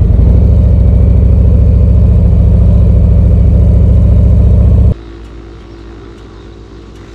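Harley-Davidson Street Glide CVO's V-twin engine running steadily and loud, with an even pulsing beat. About five seconds in the sound cuts off abruptly to a much quieter steady hum.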